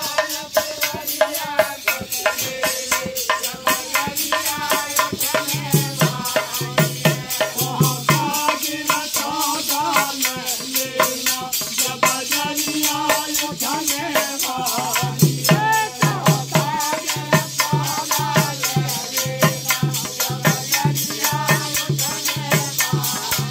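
Devotional folk bhajan: a fast, steady jingling metal rhythm over dholak drum strokes, with men's voices singing.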